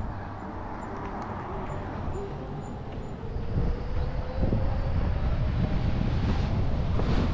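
Toyota RAV4 driving slowly along a street, a steady low rumble of road and wind noise that grows louder about four seconds in.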